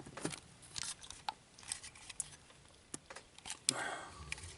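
Small model parts being handled and pressed together: scattered light clicks and taps, with a short rustle near the end.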